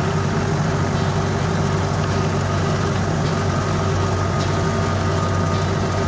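Farm tractor engine running steadily at a constant speed while the tractor drives along.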